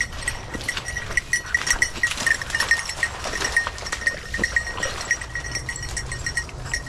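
Bird dog's collar bell jingling irregularly, several rings a second at one pitch, as the English setter runs through cover. Under it, the rustle of walking through tall grass.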